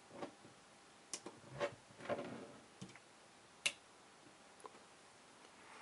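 A few faint clicks and taps of fingers flipping the small switches on a microcontroller input-output board, the sharpest click about three and a half seconds in.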